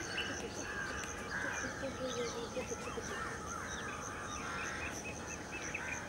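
Wild birds calling and chirping over one another, many short whistled and slurred notes. A high pip repeats evenly about twice a second.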